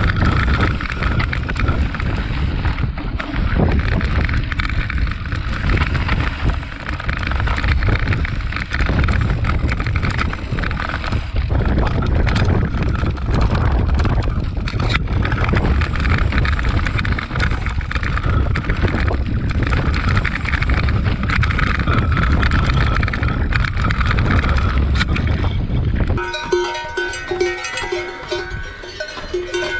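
Mountain bike descending a rocky trail at speed: wind rushing over the bike-mounted camera's microphone with the rattle of tyres and bike over loose stones. About 26 seconds in it cuts abruptly to a quieter climb where cowbells ring.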